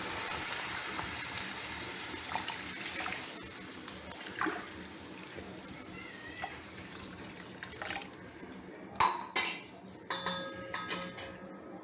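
Water poured into a saucepan of sautéed vegetables, a steady splashing pour for about the first three seconds. It then goes quieter with small scattered sounds, and two sharp clicks come about nine seconds in.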